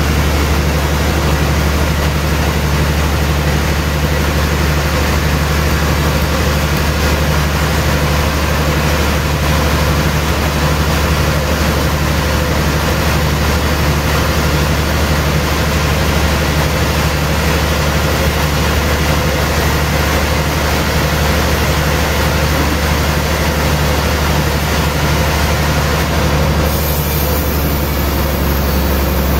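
Large sawmill band saw running steadily as it cuts lengthwise through a thick suar (rain tree) log fed on the carriage: a constant low motor hum under the hiss of the blade in the wood.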